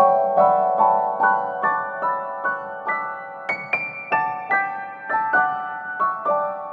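Background piano music: a gentle melody of single notes played about two to three a second, climbing to higher notes about halfway through.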